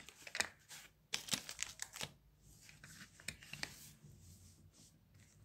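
Paper rustling and handling noises close to the microphone: a quick run of short scratchy rustles and clicks over the first four seconds, then fainter.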